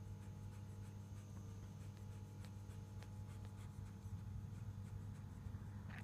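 Faint scratchy rustling and rubbing against bedding over a steady low hum.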